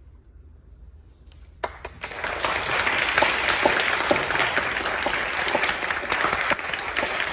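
A small audience in a recital hall applauding at the end of a chamber piece. The hall is hushed at first; a single clap comes about a second and a half in, then the applause builds quickly and carries on steadily.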